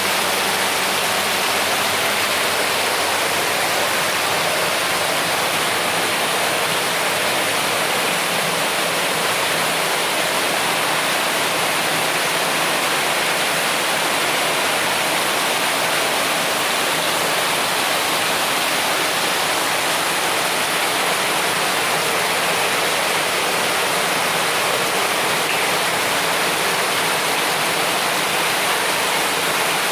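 Water pouring steadily over a man-made artificial-rock waterfall, an even, constant rush of splashing water.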